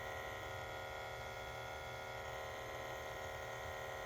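Honda CR-V's fuel-system vacuum pump buzzing steadily with the engine off. It is a normal automatic check that pulls a vacuum on the fuel tank to see that it holds.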